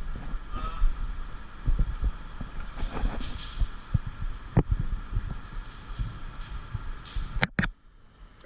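Irregular low thumps and rubbing on a body-worn camera's microphone as the wearer moves, with a sharp click about four and a half seconds in and two more close together near the end.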